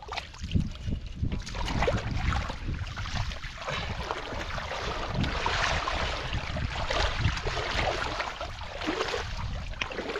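Hands splashing and sloshing through shallow muddy water, groping in the mud for catfish, with irregular slaps and swishes.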